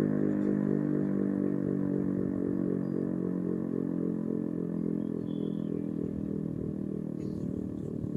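Federal Signal RSH-10 outdoor warning siren winding down after a full-alert test. Its low steady tone slowly gets quieter.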